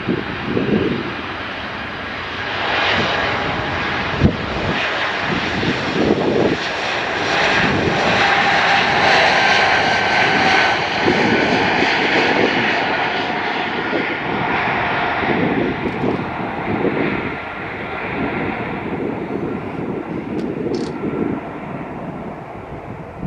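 Jet airliner's engines passing close by: the noise swells, is loudest with a steady whine about halfway through, then slowly fades. Wind buffets the microphone throughout.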